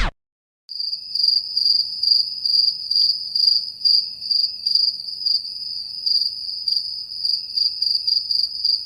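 Crickets chirping sound effect, the meme cue for awkward silence: a steady high trill with regular pulses, about two or three a second, starting just under a second in.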